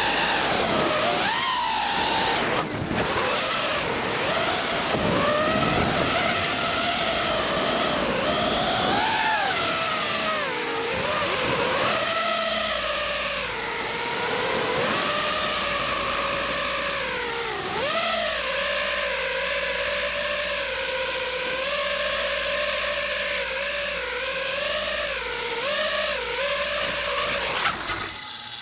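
FPV racing quadcopter's brushless motors and propellers whining, the pitch swooping up and down with the throttle. Near the end there is a brief loud knock, and then the motors cut out.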